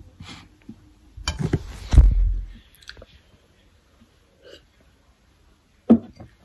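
Phone being handled close to the microphone: a rustle that ends in a heavy thump. After it come a few faint gulping sounds as coffee is drunk from a glass.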